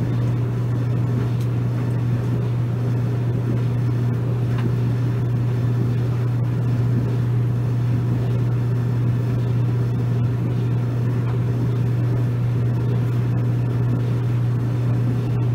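Maytag clothes dryer running steadily with a low hum as its drum tumbles a blanket.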